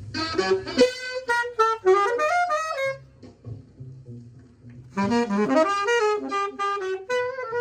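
Saxophone playing two fast bebop phrases, each about three seconds long, with a pause of about two seconds between them.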